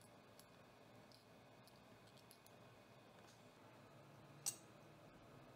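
Near silence at the workbench, broken by a few faint ticks and one sharp click about four and a half seconds in, from small hand tools working at a freshly soldered capacitor lead.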